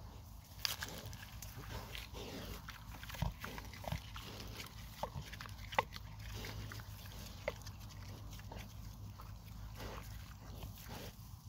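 Pigs eating eggs in grass: irregular crunching and cracking of eggshells as they chew, with snuffling and a few short grunts.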